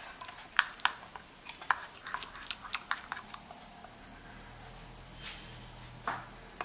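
Metal spoon clinking and scraping against a small glass bowl while stirring a thick masala marinade paste: a quick, irregular run of clicks that stops about three and a half seconds in, with one more tap near the end.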